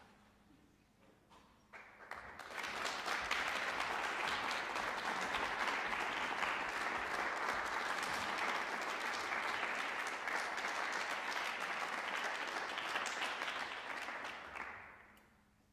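Audience applause in a concert hall, greeting the performers as they come on stage. It starts about two seconds in, holds steady, and fades out near the end.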